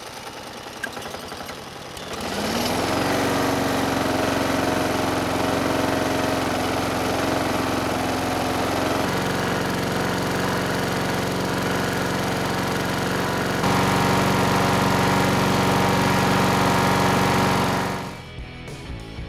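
Walk-behind lawn mower's small gas engine spun over with a cordless drill, catching about two seconds in and running up to a steady speed. It is now running on gasoline to burn off the oily WD-40 residue. About a second before the end it gives way to music.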